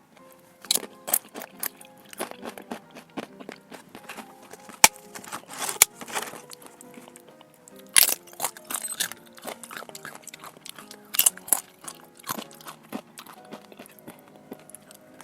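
Loud crisp crunches of food being bitten and chewed, irregular and sharp, the loudest about five, eight and eleven seconds in. Background music plays throughout.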